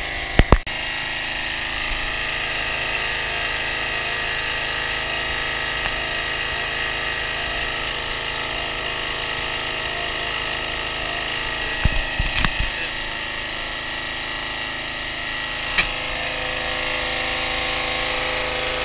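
Log splitter's 6.5 hp Briggs & Stratton single-cylinder petrol engine running steadily, driving the hydraulic pump. A few sharp knocks cut in about half a second in, in a short cluster around twelve seconds in, and once more near sixteen seconds in.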